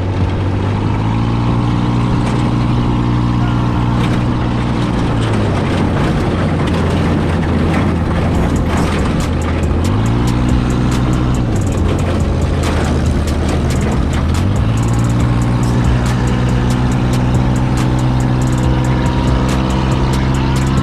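Off-road buggy engine running under way, speeding up and easing off three times, then held at higher revs, with many small knocks and rattles throughout.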